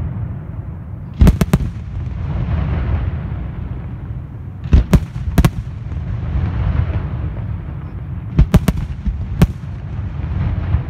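Aerial fireworks shells bursting in quick clusters of sharp bangs: a tight group a little over a second in, another around five seconds, and more between eight and nine and a half seconds. A steady low rumble runs between the clusters.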